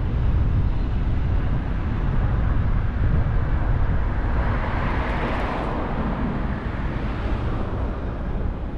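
Car driving along: steady low road and wind rumble, with a whoosh that swells and fades around the middle.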